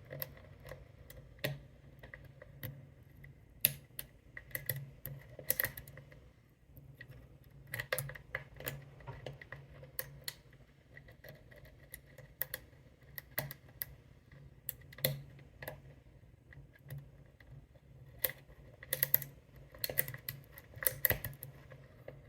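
Lock pick and tension wrench working inside an American 1100 pin-tumbler padlock: irregular small metallic clicks and taps as the pins are worked, coming in loose clusters with short pauses between.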